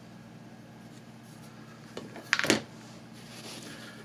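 A steel combination square set down on a wooden workbench with a short metallic clatter about two and a half seconds in, then faint rubbing as wood blocks are handled.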